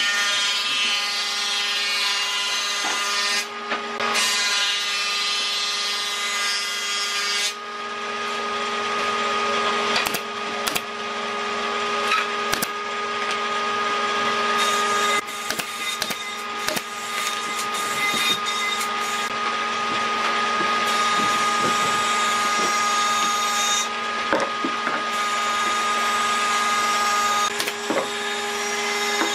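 An electric woodworking power tool running with a steady motor whine while cutting wood; the cutting noise comes and goes a few times, with scattered sharp knocks.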